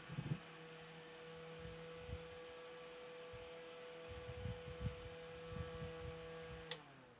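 Small electric desk fan's motor running with a steady hum, a few low knocks over it; about a second before the end, a click of the switch, and the hum drops in pitch as the motor winds down.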